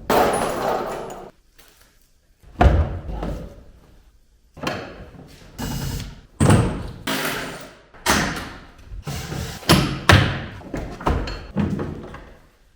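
Plastic interior trim of a Chevrolet Lacetti's trunk area being pried and pulled off: a series of irregular knocks, clacks and clatters as clips let go and panels are handled, about a dozen in all.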